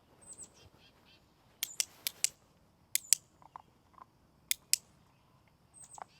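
A training clicker clicked four times, each a quick double click, as the clicker is loaded for the puppies: each click marks that food follows.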